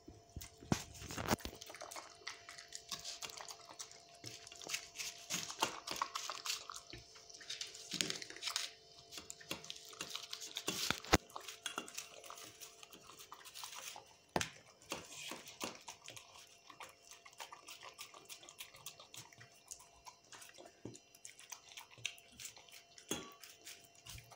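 A dog licking and gulping wet canned food from a stainless steel bowl: irregular wet smacking and lapping with frequent small clicks and clinks of tongue and teeth against the metal. The bowl knocks sharply once about eleven seconds in.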